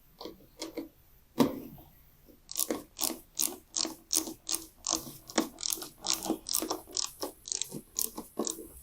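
Ratchet wrench clicking in an even run of strokes, about three a second, as the bolt on the mower's air filter housing lid is tightened down. A few scattered knocks come first, the loudest about a second and a half in.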